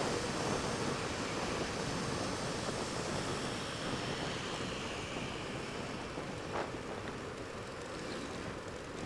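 Wind rushing over the action-camera microphone while riding a motorcycle, with the bike's running faint underneath. The rush gets gradually quieter.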